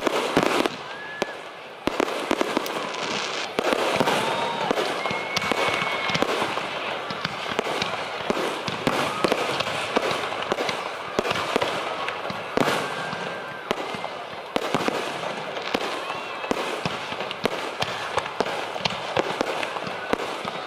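Aerial fireworks display: a dense run of sharp bangs and crackling bursts in quick succession.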